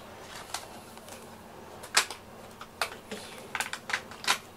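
A few sharp, light clicks and taps at irregular intervals, the loudest about two seconds in, over a faint steady room hum.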